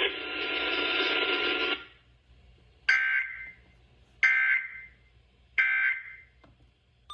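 Weather-radio Emergency Alert System end-of-message signal: three short bursts of warbling digital data tones, about 1.3 s apart. Before them, a steady radio hiss cuts off about two seconds in.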